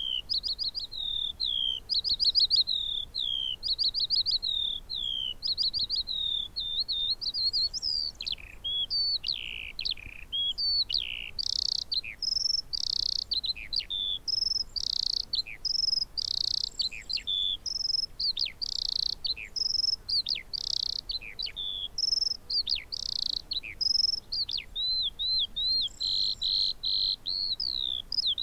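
Eurasian skylark (Alauda arvensis) singing its long, unbroken song. For the first several seconds it repeats the same short rippling phrase over and over, then switches to a fast, varied stream of buzzy notes and down-slurred whistles.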